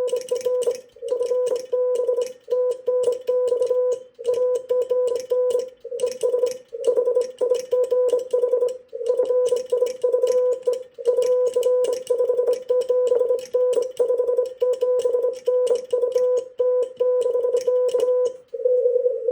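Morse code (CW) on a ham radio: a steady mid-pitched tone keyed on and off in fast dots and dashes, with faint clicks along with the keying.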